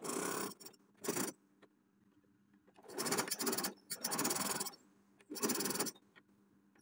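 Electric sewing machine stitching in five short runs, stopping and starting, each run a fast patter of needle strokes; the first two are brief, the last three longer.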